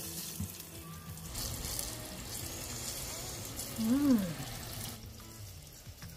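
Coated chicken frying in a pot of hot oil, a soft steady sizzle. About four seconds in, a person hums a short 'mmm' that rises and falls in pitch.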